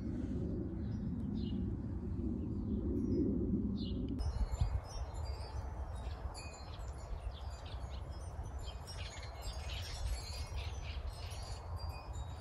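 Small birds chirping and singing in short repeated calls, over a steady low rumble. A dense low drone underneath cuts off abruptly about four seconds in, after which the birdsong is clearer.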